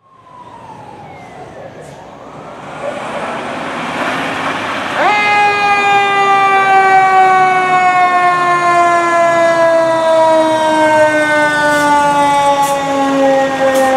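Fire engine responding with lights and siren: the truck's noise grows louder as it approaches, and about five seconds in its mechanical siren winds up in a quick rising wail, then coasts slowly down in pitch as the engine passes.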